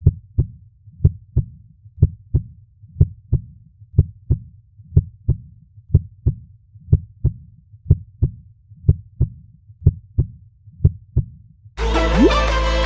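Heartbeat sound: low double thumps, lub-dub, about one beat a second. Music starts near the end.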